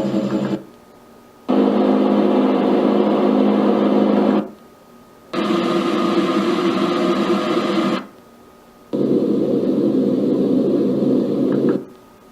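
A LATME white noise machine stepping through its built-in sounds. Each plays a steady rushing noise with low humming tones for about three seconds, then cuts off for about a second before the next, differently coloured sound starts; there are four breaks in all.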